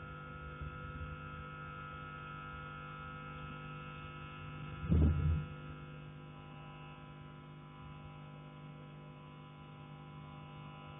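A single loud knock on a heating pipe about five seconds in, carried through the pipework from the attic, over a steady electrical hum.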